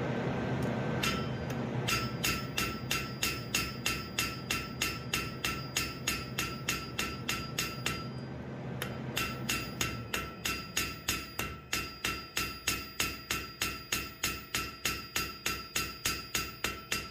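Hand hammer striking red-hot steel on an anvil in a steady rhythm of about three blows a second, the anvil ringing after each blow, as the wings of a small forged dragonfly are drawn out. The hammering pauses briefly about eight seconds in, then picks up again.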